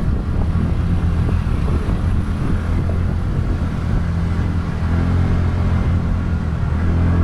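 TVS Ntorq 125 scooter's single-cylinder engine running at a steady cruise while riding, under a heavy low rumble of wind and road noise on the microphone.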